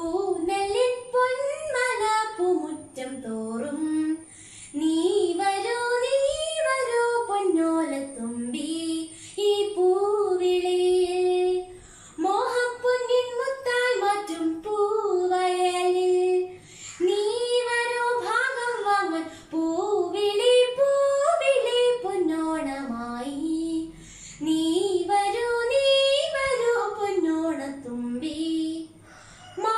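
A girl singing a Malayalam Onam song (Onappattu) solo, with no accompaniment. She sings in flowing phrases of a few seconds each, her voice rising and falling, with short breath pauses between them.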